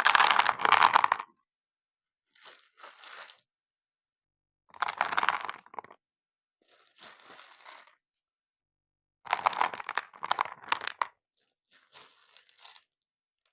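Six short bursts of crunching and crinkling, each up to about two seconds long, separated by silent gaps. The loudest bursts come at the start and about two-thirds of the way through.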